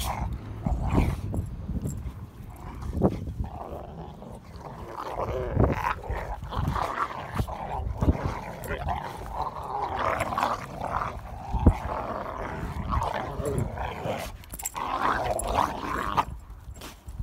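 Rottweilers play-fighting: near-continuous rough, wavering growling from the wrestling dogs, broken by a few sharp thumps from the scuffle. It dies away just before the end.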